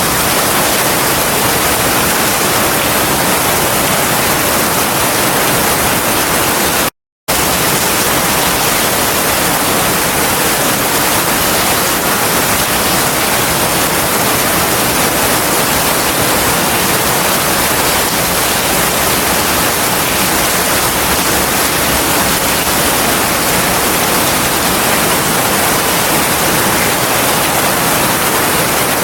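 Heavy rain pouring steadily, a dense even hiss with no thunder, which cuts out completely for a fraction of a second about seven seconds in.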